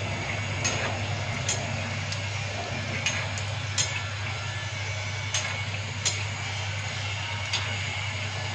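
Hot oil sizzling steadily in a wok as small puris deep-fry, with a metal slotted spoon clinking against the wok about once a second, over a steady low hum.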